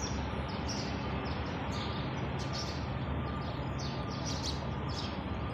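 Small birds chirping, many short high chirps one after another, over a steady background hiss of open-air ambience.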